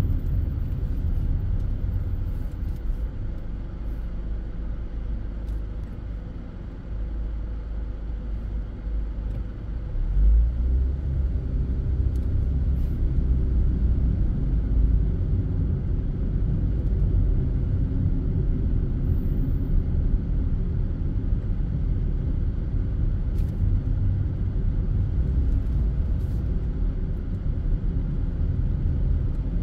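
Low rumble of a car's tyres and engine heard from inside the moving car. It eases off for a few seconds, then picks up again about ten seconds in.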